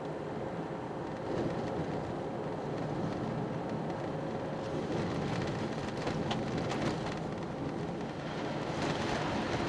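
Toyota GR Yaris driving on a wet, half-melted snowy road: steady tyre and road noise from its studless winter tyres, with the engine running underneath and a few short clicks about six seconds in and near the end.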